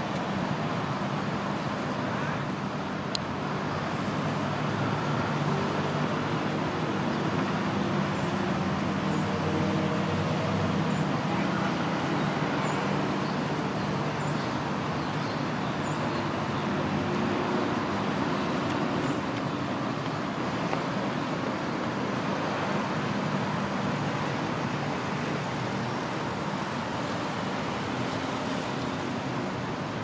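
Steady road traffic noise: a continuous low hum and rush of passing vehicles, with no breaks.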